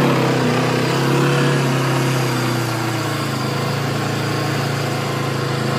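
Small vehicle engine running steadily as it climbs the trail, its pitch wavering slightly.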